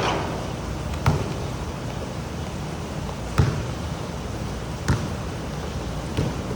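Steady hiss of pouring rain, broken by four short sharp knocks spaced a second or two apart.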